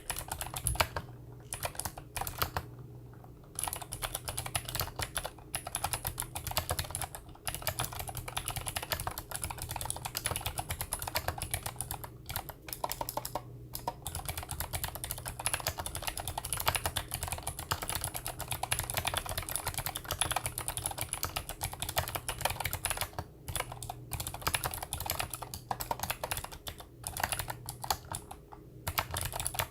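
Mechanical keyboard with clicky Gateron Blue switches being typed on steadily, keystrokes clicking in quick irregular runs. A few short pauses break the typing.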